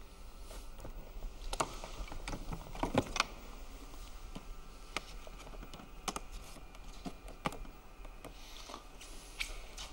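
Scattered light clicks, taps and rustles of a violin case and its cloths being handled while a violin and bow are taken out, a few taps sharper than the rest.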